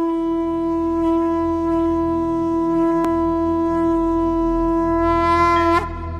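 Conch shell (shankh) blown in one long steady note, with a slight upward bend just before it cuts off near the end, over a low drone.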